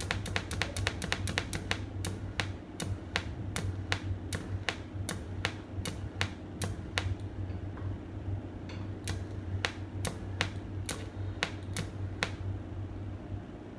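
Pulse-generator box for a TIG welder clicking in a steady rhythm. The clicks come fast at first and slow to about two a second after about two seconds. They pause briefly around seven seconds and stop about twelve seconds in, over a steady mains hum.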